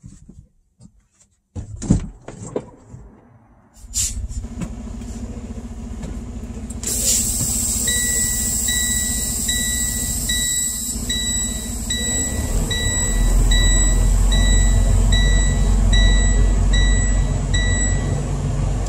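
Semi truck's diesel engine running as the truck creeps forward, louder from about two-thirds of the way in, after a few knocks and clicks in the cab at the start. From about 8 s in, a warning chime in the cab beeps steadily about every three-quarters of a second.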